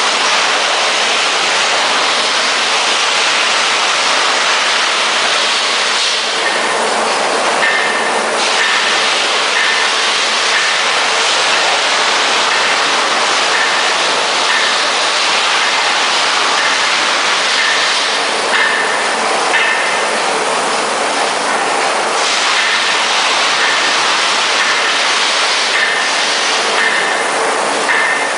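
Industrial log-debarking and wood-chipping machinery running: a loud, steady mechanical noise. From about seven seconds in, a short high-pitched squeal repeats roughly once a second.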